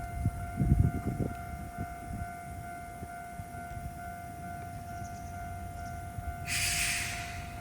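Japanese level-crossing warning bell ringing in a steady repeating electronic clang, while a Tokyo Sakura Tram passes with low rumbling and wheel knocks in the first second or so. About six and a half seconds in comes a burst of hiss lasting about a second.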